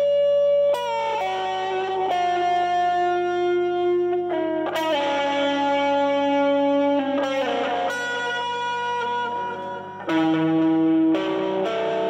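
Stratocaster-style electric guitar with single-coil pickups, amplified, playing a slow blues lead: long sustained single notes, a new note every second or two, with string bends and slides. A steady low hum sits underneath.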